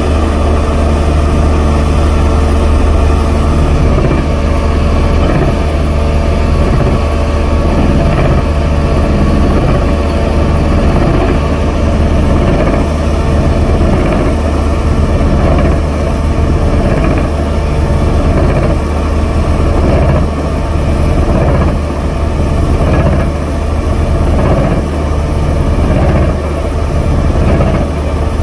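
Doosan DX530LC-5 excavator's diesel engine running under load while its hydraulic rock breaker hammers into rock in a rapid, steady stream of blows. This is a test run after a field repair.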